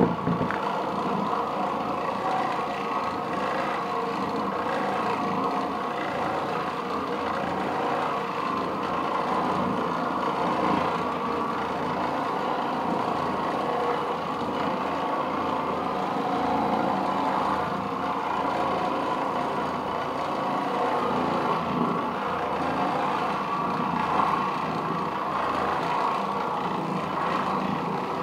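Oreck Orbiter orbital floor machine running steadily, its bonnet pad scrubbing carpet.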